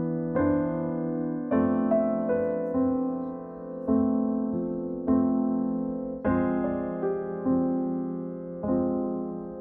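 Background music: slow electric piano chords, each struck and left to ring out before the next.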